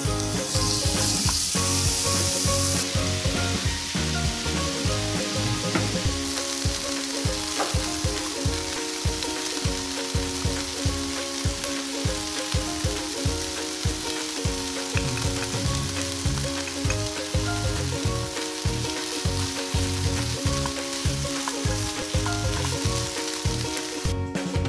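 Chicken breast pieces sizzling in hot oil in a nonstick frying pan. The sizzle is loudest for the first couple of seconds as the raw chicken goes in, then settles to steady frying.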